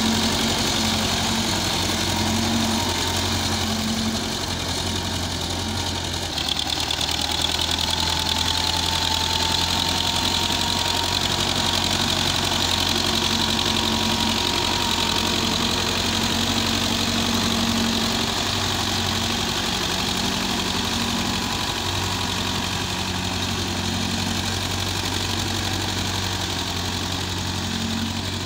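Belarus MTZ-50 tractor's four-cylinder diesel engine running steadily under load while the tractor pushes soil with its blade; its note shifts slightly about six seconds in.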